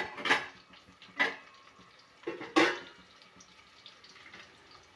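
A utensil scraping in a pan of frying onions and curry leaves: three short strokes in the first three seconds, then only a faint hiss.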